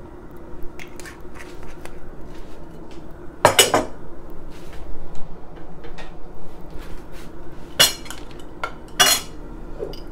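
Kitchen clatter of cookware and utensils: scattered clinks and knocks, with louder clattering about three and a half seconds in and again near nine seconds, over a steady low hum.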